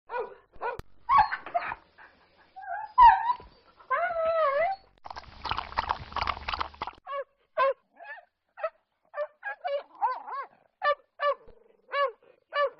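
Dog sound effects: a few barks and whines, a drawn-out wavering whine, then a rapid run of short, high yelps, about two a second, typical of a dog crying in pain.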